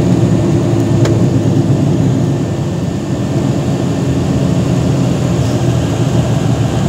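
Aircraft cabin noise during the landing roll on the runway: a steady, loud low rumble of engines and wheels, heard from inside the cabin.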